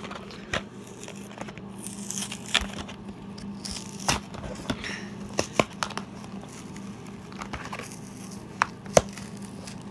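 A cardboard-and-plastic toy box being handled: scattered rustles, scrapes and sharp clicks of fingers on the packaging and the phone, over a low steady hum.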